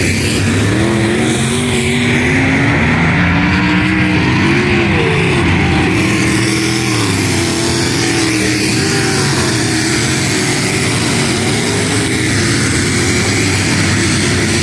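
Several dirt-track race car engines running together at racing speed under green flag. Their pitches rise and fall as the engines rev up and back off.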